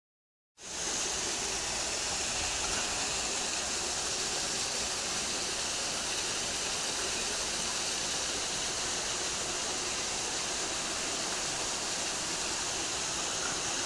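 Steady, even rushing hiss with no rhythm or pitch, strongest in the upper range, starting abruptly about half a second in.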